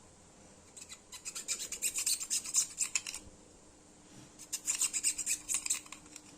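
Quick rasping strokes as the edges of a small hand-made glued pad are trimmed smooth, in two bursts: a longer one about a second in and a shorter one near the end.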